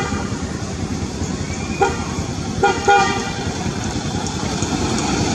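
Road traffic running steadily in the background, with short horn toots about two seconds in and twice in quick succession near three seconds.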